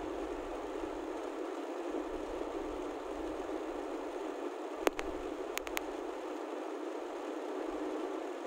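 Steady road and engine noise heard inside the cabin of a slowly moving car. Three sharp clicks stand out, one about five seconds in and two more close together just after.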